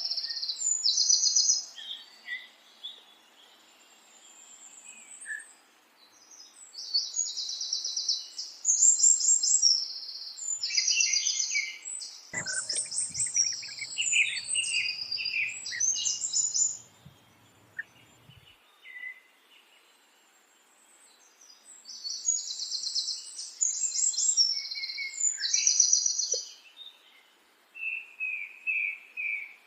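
Songbirds singing in bouts of rapid, high trilled phrases, with quieter spells between them and some lower chirps near the end. A faint low hum is heard for a few seconds midway.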